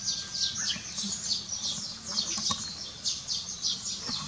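Continuous high-pitched chirping outdoors: short, falling chirps repeated several times a second without a break.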